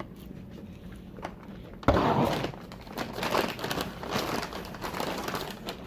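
Paper take-out packaging rustling and crinkling as it is handled, starting suddenly with a knock about two seconds in and going on in uneven crackles until near the end.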